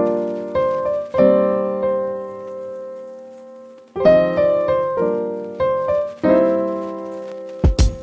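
Background piano music: chords struck every second or two and left to ring out and fade, with drum beats coming in near the end.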